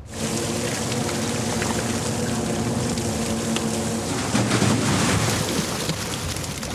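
A fishing boat's engine running steadily under a constant rush of sea water. It cuts in abruptly and holds at an even level.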